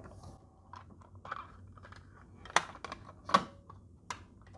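A series of small clicks and clunks as the Sony TC-KA3ES cassette deck's eject button is pressed and its cassette door opens, the sharpest about two and a half and three and a half seconds in.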